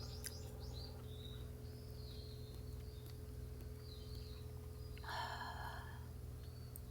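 Small birds chirping with short, arched notes over a steady low outdoor rumble, and one louder, harsh sound lasting just under a second about five seconds in.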